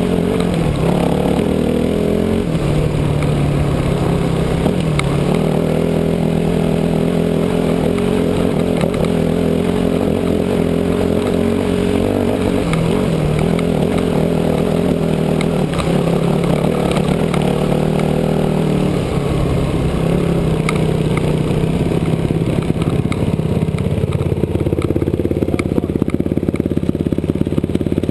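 2006 Yamaha WR250F dirt bike's 250 cc four-stroke single-cylinder engine running under load along a dirt trail, its pitch stepping up and down several times with throttle and gear changes. Loose stones clatter and scrape under the tyres.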